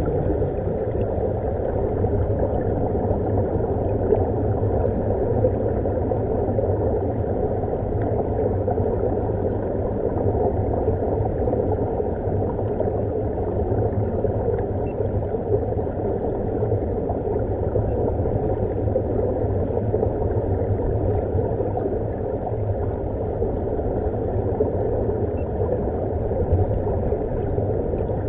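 Steady, continuous underwater rushing and rumbling of air bubbling out of surface-supplied diving helmets, heard from underwater.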